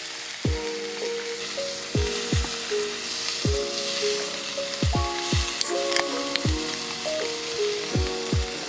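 Cubes of beef searing in a hot pan on a camping gas stove, giving a steady sizzling hiss. Under it runs background music with soft held chords and deep kick drums that fall in pitch, about nine of them.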